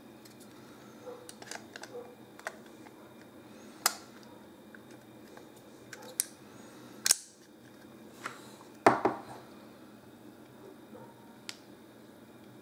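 Sony MPK-AS3 plastic underwater housing and HDR-AS100V action camera clicking and knocking as the camera is fitted into the housing and the housing is closed. The clicks are scattered and sharp, with the loudest snap about nine seconds in.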